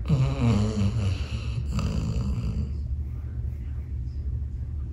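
A sleeping dog snoring: two snores in a row, the first about a second and a half long, the second shorter, over a steady low hum.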